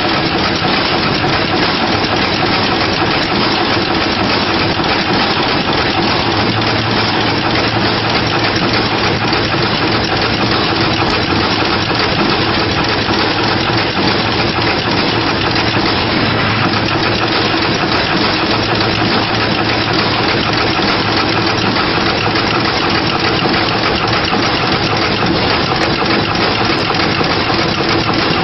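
Through-hole auto insertion machine running: a loud, continuous mechanical din with a steady hum underneath.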